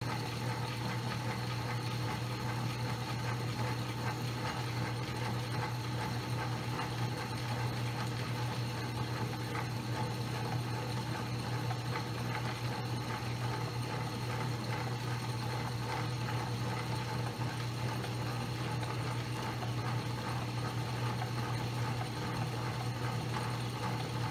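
Atlas QC-54 metal lathe running under power: a steady electric motor hum with a continuous light clatter from the gear train.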